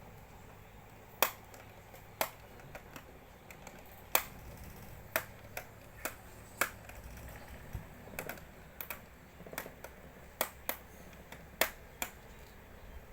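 Irregular sharp clicks and taps, roughly one or two a second, some much louder than others.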